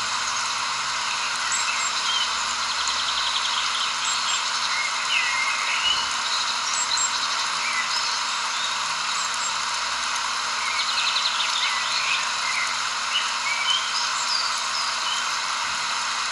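Nature ambience: many small birds chirping, with a couple of quick trills, over a steady hiss.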